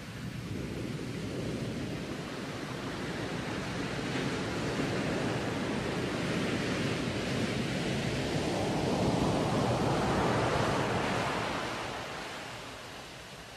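Waves breaking on a sandy beach with wind on the microphone: a steady rushing noise that swells to its loudest about two-thirds of the way through, then eases off.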